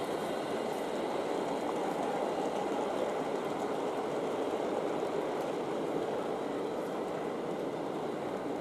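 Gauge 1 model train of Pullman coaches rolling past on the track, its wheels making a steady rumble on the rails.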